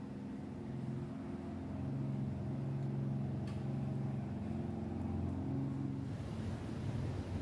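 Soft background music: low sustained chords that change every second or two.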